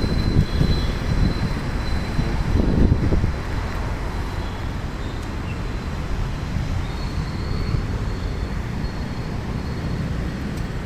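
Steady low rumble of road traffic and vehicle noise, a little louder about three seconds in.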